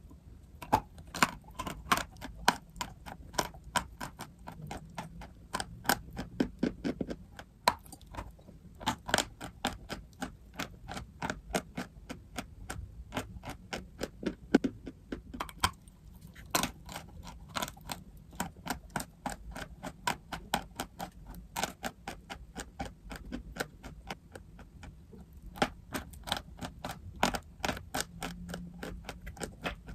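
Dry chalk crunching: a quick run of sharp, crisp cracks, several a second, coming in bursts with short pauses between them.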